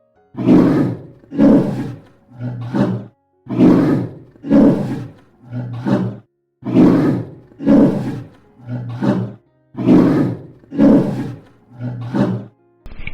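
A bear roaring in a rhythmic series of about a dozen deep calls, roughly one a second.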